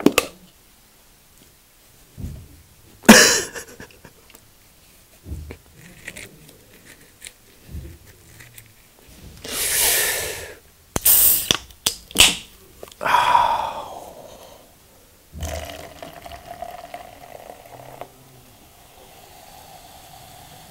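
Handling noises from a plastic cup and a soda can, then an aluminium soda can opened near the middle with sharp clicks and a hiss. For the last five seconds carbonated grape soda is poured into a plastic cup, fizzing steadily.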